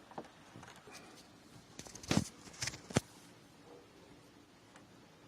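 A few small clicks and scrapes of a plastic wire nut and stranded copper wires being handled and twisted together, the sharpest about two and three seconds in.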